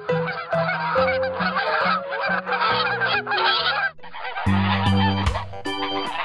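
Many ducks quacking at once, a dense overlapping clamour, over background music. About four seconds in the quacking stops and the music carries on with plucked guitar notes.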